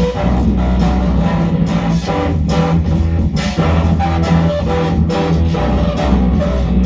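Live music: an electric guitar played through an amplifier over loud, sustained low notes that shift in pitch now and then.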